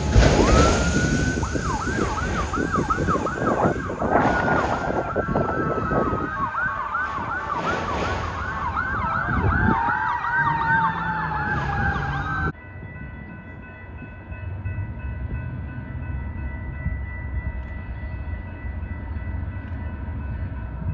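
A freight train of autorack cars rolling past, with a high wailing tone that warbles up and down over it many times. About twelve seconds in the sound cuts off sharply to a quieter, distant rumble as another freight locomotive approaches.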